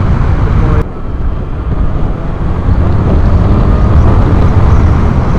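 Motorcycle on the move: wind rush and engine and road noise, dominated by a low rumble, picked up by a camera mic behind a furry windshield. The level drops abruptly a little under a second in, then builds back up over the next few seconds.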